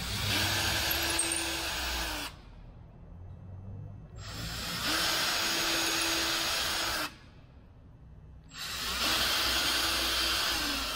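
Ryobi cordless drill running three times, each for two to three seconds, spinning up and winding down each time, as a 3/16-inch bit is run through pre-drilled holes in the urethane-finished wooden airframe to clear them.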